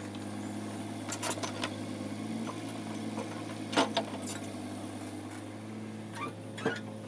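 Kubota KX016-4 mini excavator's three-cylinder diesel engine running steadily as the machine digs, with several sharp clanks and knocks from the bucket and hydraulic arm, the loudest nearly four seconds in.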